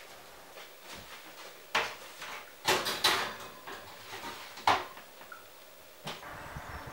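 Metal baking tray being slid onto the rack of a Bosch built-in oven and the oven door being handled, a handful of sharp clunks and clatters, the loudest about halfway through.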